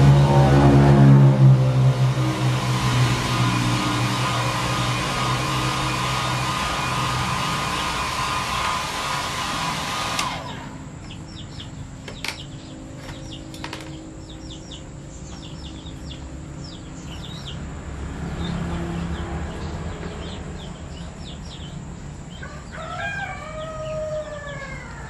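Hand-held Panasonic hair dryer running with a steady whirr and whine, cutting off suddenly about ten seconds in. After that only faint chirps remain, with a few short falling animal calls near the end.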